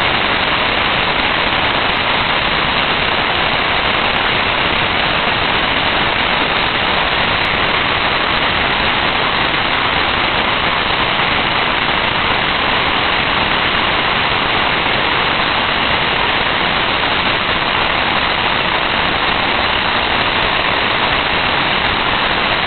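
Several consumer firework fountains burning at once: a loud, steady hiss of spraying sparks that goes on without a break.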